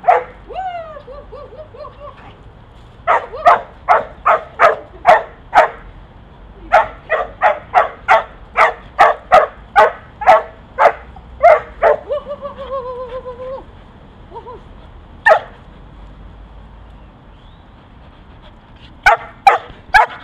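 A dog barking in quick runs during play, about two to three sharp barks a second, with a long run in the middle and a few barks near the end. Twice between runs it whines in drawn-out, wavering tones.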